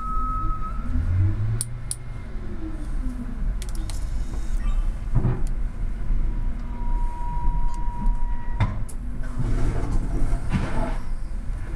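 A train rolling slowly over rails, a low rumble with occasional metallic clanks and a high squeal lasting a couple of seconds about seven seconds in.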